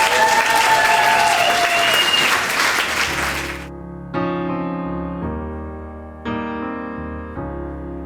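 Guests applauding and cheering, with a few whoops, cut off abruptly about three and a half seconds in. Then solo piano plays slow, sustained chords, a new chord struck every two seconds or so.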